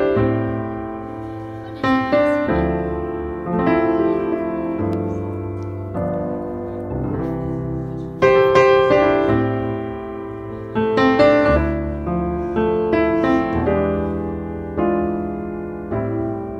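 Background piano music, with notes and chords struck about every second and each one ringing and fading.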